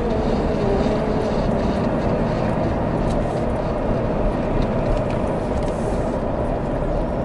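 Vehicle driving over a rough gravel track, heard from inside the cab: a steady rumble of engine and tyres with a few faint knocks.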